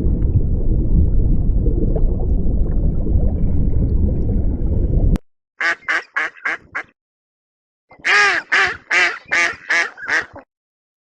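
A steady low noise that cuts off abruptly about five seconds in, then a duck quacking in two quick runs of short calls, about five and then about seven.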